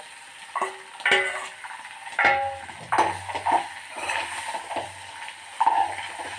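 Metal spatula scraping and knocking against a steel kadhai while stirring and breaking up potato pieces, in irregular strokes with a brief metallic ring on the harder knocks.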